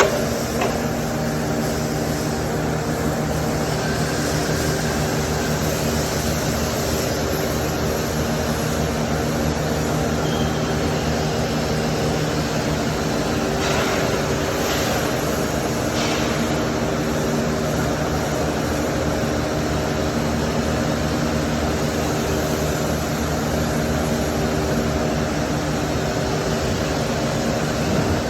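MIG welding arc running continuously on stainless steel: a steady buzzing, frying noise over a hum of several steady tones, without a break.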